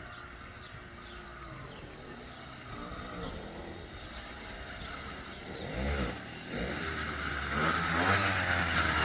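Small two-stroke motorized-bicycle engine catching about six seconds in, then running and revving, growing louder near the end.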